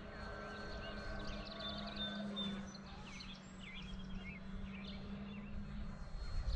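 Distant electric RC plane's brushless motor and 12x10 propeller, a steady hum that drops away just before the end, with birds chirping over it.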